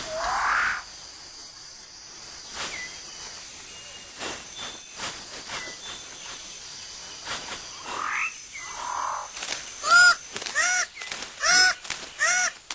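Tropical rainforest wildlife: steady high insect trilling with scattered calls. In the last few seconds a run of loud, short, arched calls repeats about twice a second.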